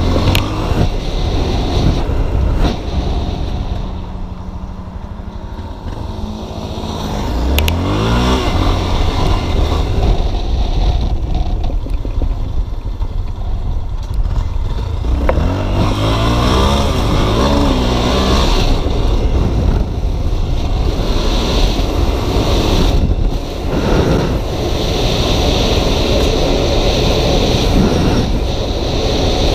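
Motorcycle engine running under the rider during wheelies, revving up with a rising pitch twice, about a quarter and about halfway through, with wind buffeting the microphone.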